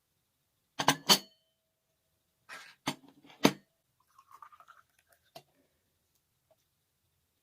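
Sharp knocks in two pairs, the second pair coming about two seconds after the first, followed by soft scraping and rustling.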